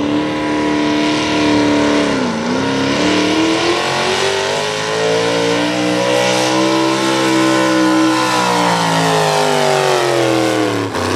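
Hot rod V8 pulling tractor, a Farmall with a Ford V8 and open straight exhaust stacks, running hard under load while it drags a weight-transfer sled. The engine note dips sharply about two seconds in, climbs and holds high through the middle, then falls away and cuts off near the end as the pull finishes.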